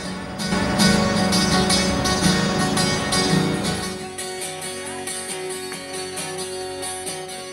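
Background music led by a strummed acoustic guitar with a steady beat; about halfway through it thins to sparser, held notes and grows quieter.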